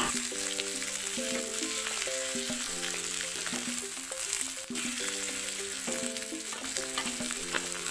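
Diced tempeh sizzling in oil in a wok while a metal spatula stirs and scrapes it round the pan, the kering tempe nearly done. Soft background music with held chords plays underneath.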